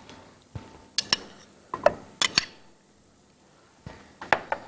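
Cookware being handled on a kitchen counter and gas stove: a scattering of short, sharp clinks and knocks in small pairs, a brief lull, then a few more clicks near the end.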